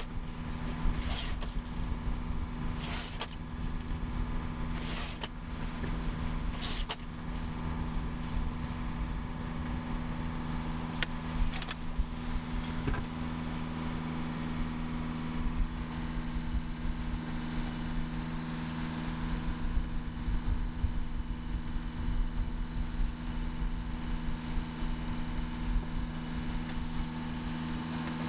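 A sailboat's inboard engine running with a steady drone, over a low rumble of wind and water. Five short, sharp ticks come about every one to two seconds in the first seven seconds.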